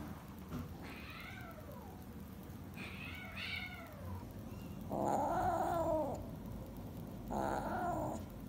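Domestic cat meowing: a few short, high meows with falling pitch in the first half, then two longer, lower, louder meows, the second near the end.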